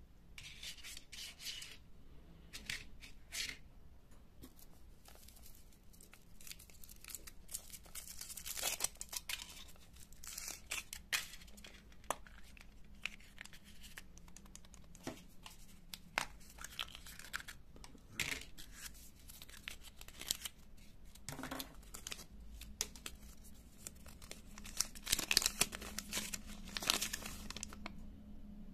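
Foil wrapper of a Kinder Surprise chocolate egg crinkling and tearing as it is unwrapped by hand, then the egg and its plastic toy capsule being opened, heard as a run of irregular crackles and clicks.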